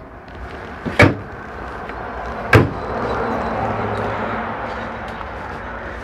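Two sharp knocks about a second and a half apart as the wooden cabinet doors and drawer under a motorhome's kitchen sink are shut, followed by a few seconds of softer rustling.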